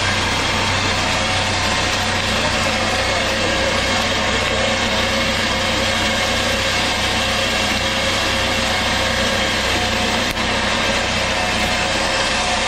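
Car engine running steadily at idle, an engine whose knock comes from a spun connecting-rod bearing.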